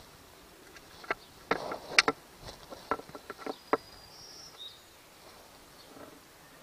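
Sharp clicks and light knocks of the parts of an opened outboard remote control box being handled, about a dozen in a couple of seconds with a brief rustle among them, followed by a faint high chirp.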